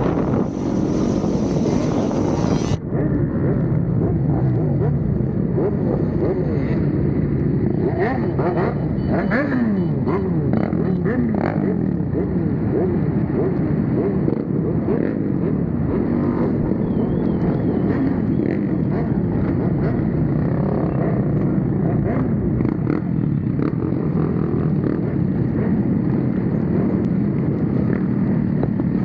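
Several motorcycle engines running and revving together, their pitches rising and falling and overlapping. A high hiss above them cuts off abruptly about three seconds in.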